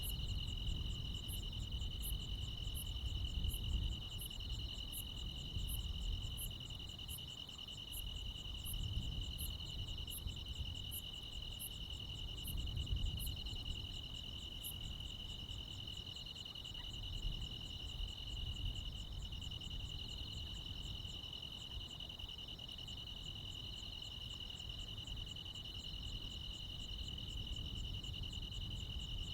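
Crickets and other insects chirping together in a steady, continuous trill, with one insect's high, sharp ticks about twice a second that stop about halfway through. A low rumble runs underneath.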